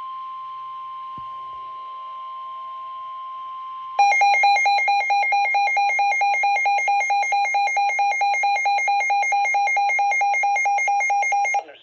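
NOAA weather alert radio sounding a warning alert: a steady single-pitch alert tone for about the first four seconds, then a much louder alarm of rapid pulsing beeps that cuts off suddenly near the end. The alert signals a severe thunderstorm warning.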